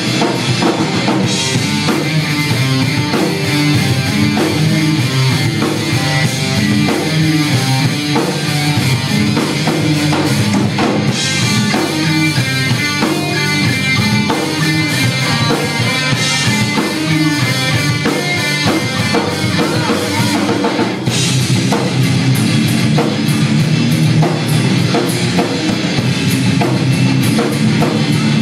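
Live rock band playing loud: electric guitars over a drum kit, with a short break in the playing about 21 seconds in.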